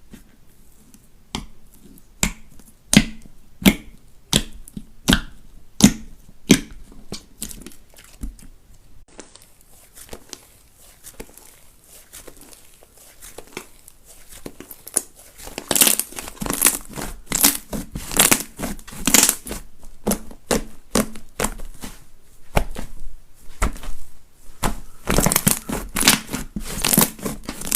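Slime being pressed and squeezed by hand: a string of crisp clicks about every 0.7 s at first, then after a quieter stretch, denser and louder crackling and crinkling from about halfway through.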